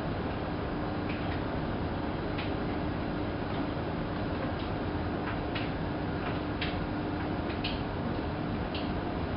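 Hanseatic HWM814A3D front-loading washing machine running, with a steady hum and irregular light clicks roughly once a second.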